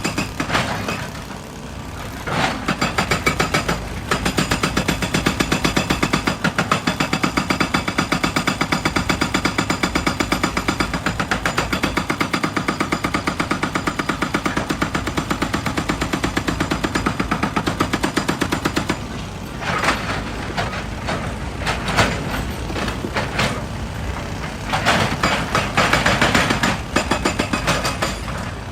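Excavator-mounted hydraulic rock breaker hammering rock in a rapid, steady stream of blows for about fifteen seconds, then stopping while the diesel engine runs with scattered knocks, and hammering again in short bouts near the end.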